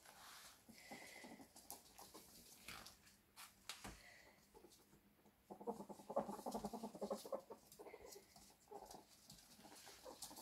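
Two ferrets scuffling on a wooden floor, an unneutered male in heat chasing a female, with claws ticking on the boards. About halfway in the ferrets give a rapid clucking chatter lasting about two seconds.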